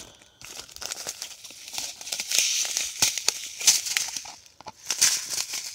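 Crinkling and rustling of plastic and paper first aid packets as hands rummage in the kit and draw out an instant cold compress pouch. The crinkles come unevenly and are loudest in the middle and again near the end.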